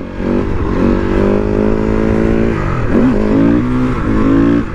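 Husqvarna SMR 510 supermoto's single-cylinder four-stroke engine running under way at a steady pitch. About three seconds in, the revs drop sharply and pick back up, with a short dip again near the end.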